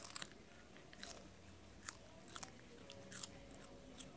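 A cat chewing pieces of raw potato: quiet, sharp crunches at irregular intervals, roughly one every half second to a second.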